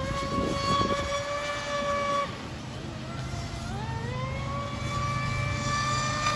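Traxxas Spartan RC boat's 4082 1650kv brushless motor on 6S, running at speed with a high steady whine over the hiss of the hull on the water. The whine breaks off about two seconds in, then about four seconds in it rises back up in pitch as the motor spools up again and holds steady.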